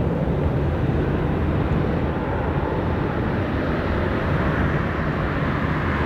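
Boeing 777-300 jet engines running as the airliner rolls slowly on the runway: a steady deep rush of jet noise.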